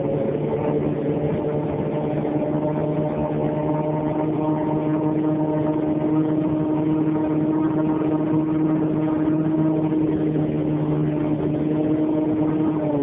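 Small boat's motor running steadily at cruising speed under way, a constant hum whose pitch creeps up a little midway, over a rush of water and wind.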